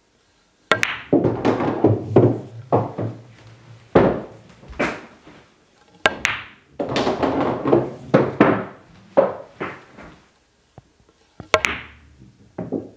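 Three pool shots about five and a half seconds apart: each a sharp click of the cue tip on a Runde Kielwood shaft striking the cue ball, followed by a few seconds of the ball rolling and knocking around the table.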